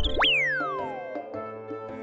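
A cartoon swoop sound effect, a quick upward whoop that then slides slowly down in pitch for about a second, over light children's background music.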